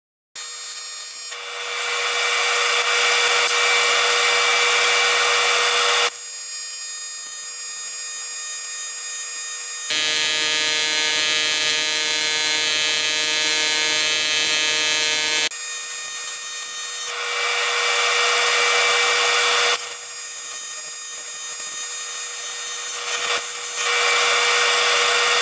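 AC TIG welding arc on aluminum from a PrimeWeld TIG 325X: a loud, steady buzz with hiss. It starts a moment in, and its tone shifts abruptly a few times.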